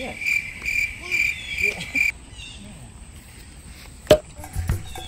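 Insect chirping: a high, even chirp repeated about three times a second, which stops abruptly about two seconds in. A single sharp knock just after four seconds, then a low pulsing beat near the end.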